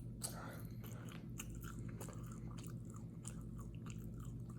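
A person chewing chicken nuggets close to the microphone: irregular soft crunches and wet mouth clicks, over a steady low hum.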